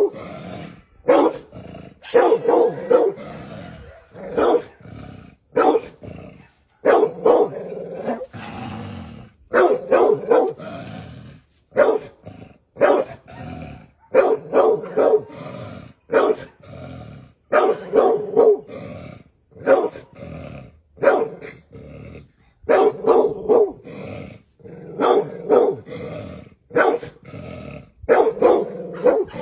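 Large dog barking over and over at a snake, in quick clusters of sharp barks every second or two with lower sounds between them: an alarm bark at a threat.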